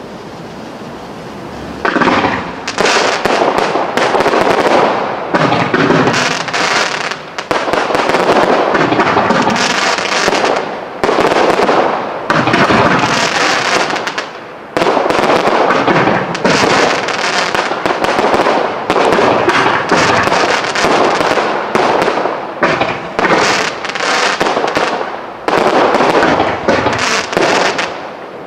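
Fireworks display: after about two seconds of low hiss, a dense, nearly continuous run of rapid pops and crackles from exploding shells and stars sets in and goes on in waves with short dips.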